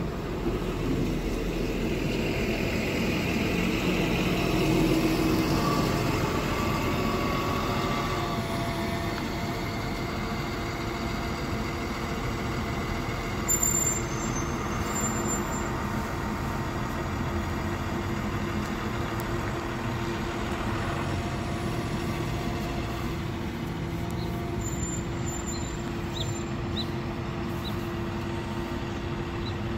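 NABI 40LFW hybrid-electric city bus pulling away from the stop and driving off, its drive loudest as it passes in the first several seconds, then a steadier hum as it moves away. A brief sharp sound cuts in about halfway through.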